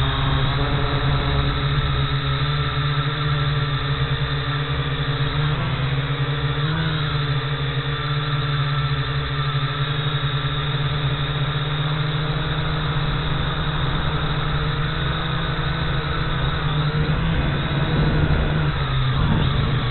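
Quadcopter drone's electric motors and propellers whining steadily, heard from the camera mounted on the drone as it climbs. The pitch wavers briefly about a third of the way in and shifts again near the end as the motors change speed.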